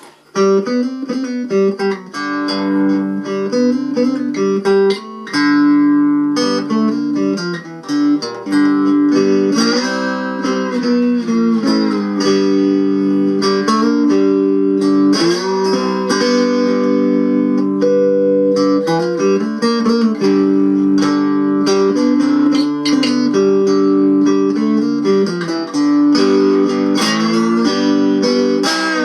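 Homemade cigar box guitar with a pine body, maple neck and tin-sign resonator top, heard through its piezo pickup, playing a slow melody of plucked, ringing notes. Several notes slide up and down in pitch along the way.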